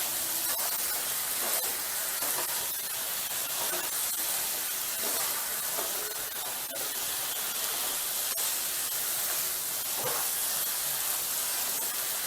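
Marinated chicken pieces frying in oil in a pan: a steady sizzle with a few small pops, the water cooked off and the chicken now frying in the added oil.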